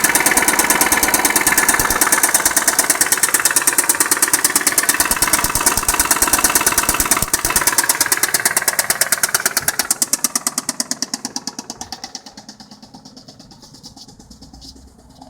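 Mazda Xedos 9's V6 engine idling with a loud, rapid, regular knock, heard close up under the hood. The knock fades over the last few seconds.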